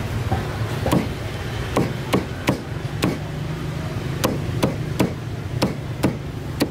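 Cleaver chopping through roast meat and bone on a chopping board: about eleven sharp chops at an uneven pace, over a steady low hum.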